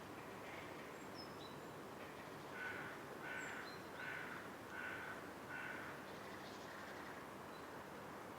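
A bird calls five times in a row, evenly spaced a little over half a second apart, over a steady faint hiss; a few thin high chirps from small birds come just before.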